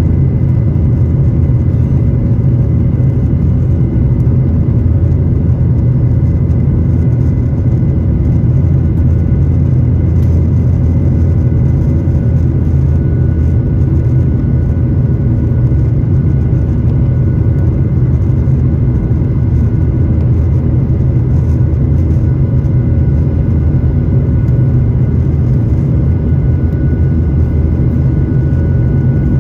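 Cabin noise of a Boeing 737-8 MAX climbing after takeoff, heard inside the cabin beside the wing: its CFM LEAP-1B turbofan engines make a steady deep rumble with faint steady whining tones above it, one of which grows stronger near the end.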